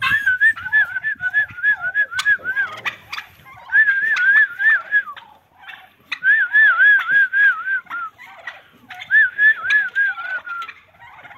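Young puppies whining in high, wavering squeals, each bout a quick run of rising-and-falling notes about four a second, four bouts with short pauses between. They are crowding in to nurse from their mother.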